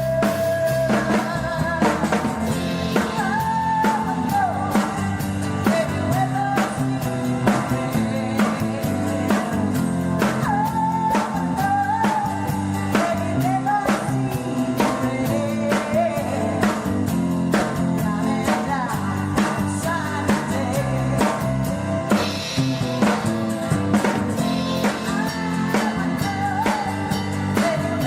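Rock band playing: drum kit keeping a steady beat under bass and guitars, with a bending lead melody line on top.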